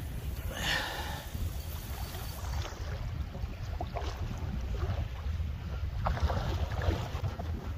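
Wind buffeting the microphone: a steady low rumble with a few brief rushes of hiss, about a second in and again near the end.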